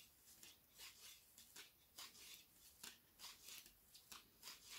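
Faint clicking and rustling of knitting needles and yarn as knit stitches are worked, small irregular ticks about two or three a second.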